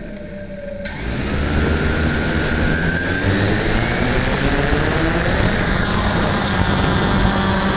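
Radio-controlled model airplane's motor and propeller throttling up about a second in, with a rising whine, then running at full power as the plane rolls fast over the grass on its takeoff run.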